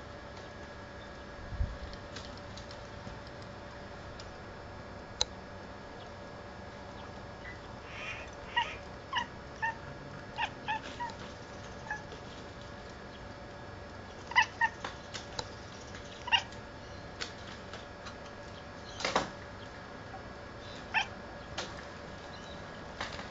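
A domestic cat chirping, the short chattering call a cat makes at birds: a run of brief chirps about eight seconds in, another cluster about fourteen seconds in, then a few single ones. A faint steady hum runs underneath.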